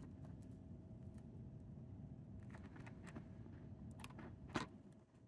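Quiet handling sounds as a glue tube's plastic nozzle is worked into a crack in foam: a few faint scattered clicks, one sharper click about four and a half seconds in, over a low steady room hum.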